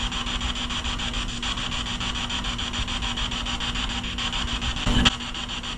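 Spirit box, a radio scanner sweeping rapidly through stations, giving a steady rasping static chopped into quick even pulses, with one brief louder burst about five seconds in.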